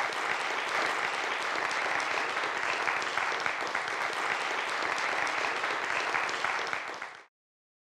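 Audience applauding: a steady mass of handclaps that cuts off abruptly about seven seconds in.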